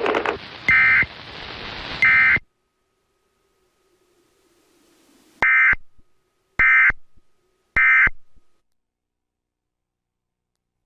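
Emergency Alert System end-of-message data tones: short loud bursts of digital data around 2 kHz. Two bursts come over the tail of the noisy broadcast audio, which then cuts off. A few seconds later three clean bursts follow about a second apart, marking the end of the alert.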